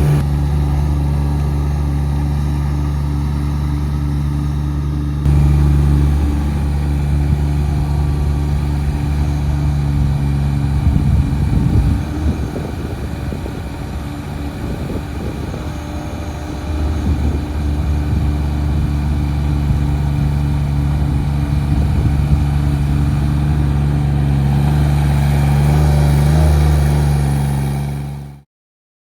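Small diesel engine of a compact tracked skid steer running at a steady speed. Partway through it gets rougher and busier for several seconds, then steadies again before fading out near the end.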